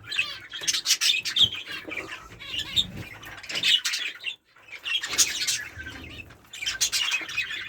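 Mixed small aviary birds (budgies, canaries and zebra finches) chirping and twittering, with many short rustling, fluttering sounds among them.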